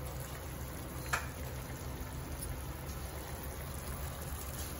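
An omelette sizzling faintly in a frying pan over a low flame, with a steady low hum under it. One short, sharp click about a second in.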